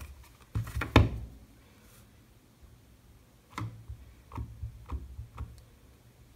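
Clear acrylic stamp block knocking down on paper and the craft table: two sharp knocks just under a second in, then a quick run of about five lighter taps from about three and a half seconds in.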